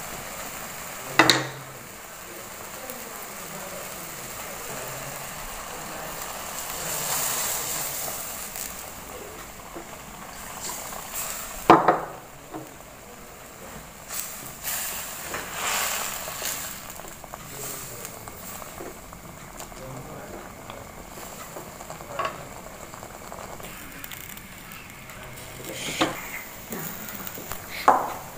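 Instant noodles sizzling and bubbling in broth in a wok, stirred with a wooden spatula that knocks sharply against the pan a few times.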